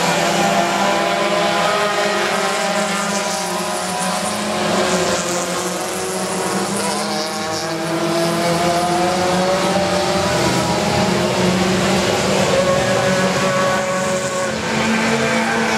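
Several 1600 cc touring race cars running at racing speed, their engine notes overlapping and rising and falling through the gear changes.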